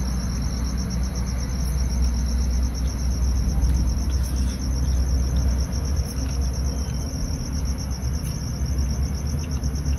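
Crickets chirping continuously in a fast, even trill, over a steady low rumble.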